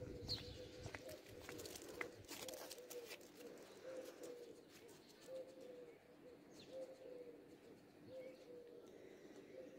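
A pigeon cooing faintly, the same low phrase repeated about every second and a half. A few light clicks in the first few seconds.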